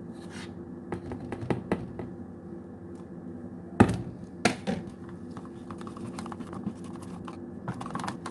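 A utensil scraping and clicking against a cup as a flour-and-water paste is stirred, in irregular taps with two sharper knocks about four seconds in.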